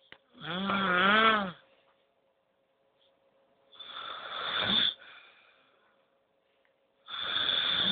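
A sleeping person snoring heavily, three long snores about three seconds apart. The first has a buzzing tone that wobbles in pitch; the next two are rougher and rattling.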